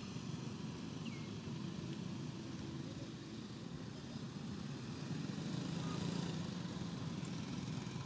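Steady low background rumble, a little louder in the second half, with no monkey calls heard.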